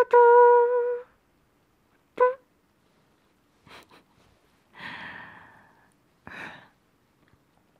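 A woman's voice humming a held note that ends about a second in, then a short hummed "mm" a second later, followed by soft breaths: a long exhale and a shorter one near the end.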